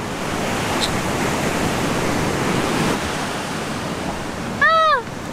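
Steady wash of ocean surf on a sandy beach. A short voice sound that rises then falls cuts in briefly near the end.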